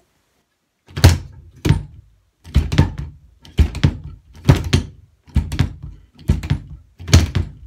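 Bass drum pedal's beater striking the kick drum in heel-toe doubles: a heel stroke then a toe stroke. After a slower first pair, the pairs come about once a second, the two strokes of each about a third of a second apart.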